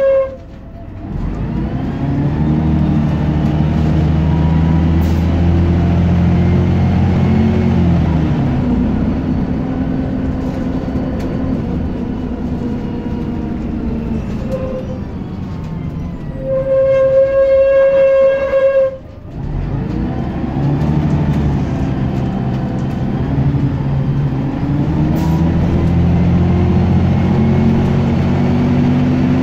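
Scania Citizen single-decker bus's diesel engine heard from inside the saloon, pulling away and accelerating twice, its note rising and dropping back as the automatic gearbox changes up. A steady electronic tone sounds for about two seconds shortly before the second pull-away.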